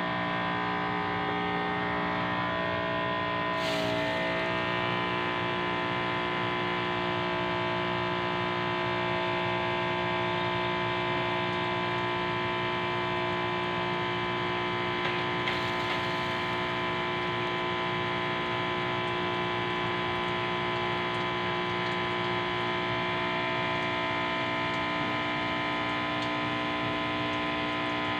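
Electric water pump running with a steady, pitched hum, switched on to spray a watering solution; the pitch shifts slightly about four seconds in.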